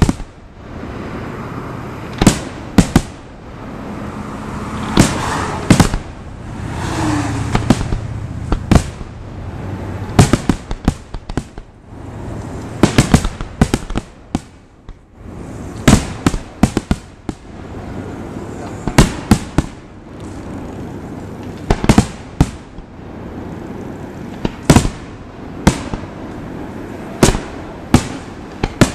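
Aerial firework shells bursting in a long, irregular string of sharp bangs, some coming in quick clusters of several.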